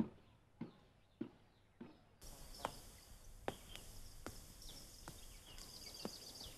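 Faint footsteps, single knocks about two-thirds of a second apart that grow quieter. About two seconds in they give way to slower footsteps over steady background ambience, with birds chirping.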